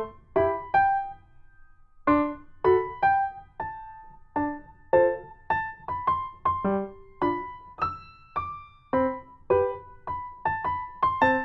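Background piano music: a slow melody of single struck notes, each fading away, about two a second, with a brief pause about a second in.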